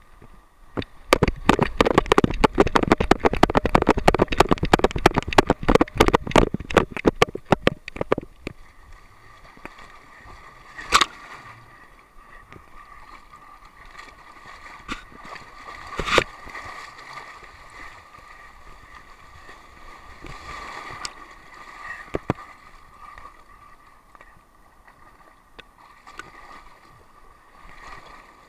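A golden retriever entering and swimming in the surf, heard from a camera strapped to its back: a dense run of rapid knocks and splashes for the first eight seconds or so, then softer water sloshing and gurgling around the camera with a few sharp knocks.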